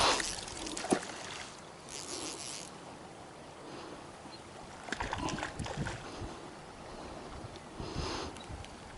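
River water running, with a few brief knocks about a second in and again around five to six seconds in.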